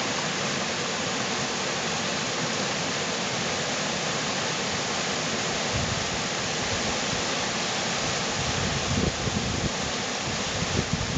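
Whitewater rapids rushing over boulders in a mountain river, a steady loud hiss. In the last couple of seconds, wind buffets the microphone in uneven low gusts.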